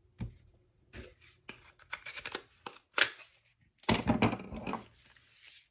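Hands handling small cosmetic packaging and lipstick tubes: scattered light clicks and taps, with a louder stretch of rustling about four seconds in.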